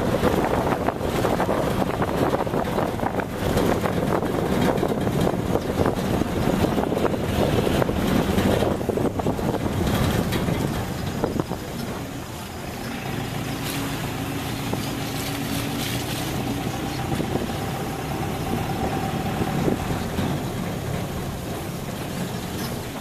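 Vehicle driving along a rough dirt track, heard from on board: engine, tyre and road noise with wind on the microphone. It is louder and rougher for the first half, then quieter about halfway through, where a steadier engine hum comes through.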